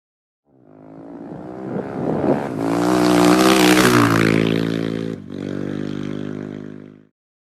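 Motorcycle engine revving up and running hard, fading in and out. Its pitch drops about four seconds in, and there is a short break just after five seconds.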